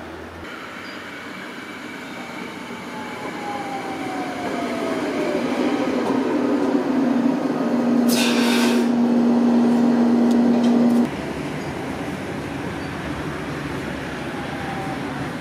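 Light-rail tram arriving at a platform: its running noise builds as a motor whine falls in pitch, a short hiss comes about eight seconds in, and a steady hum follows. About eleven seconds in it cuts abruptly to the quieter, steady rumble of riding inside the moving tram.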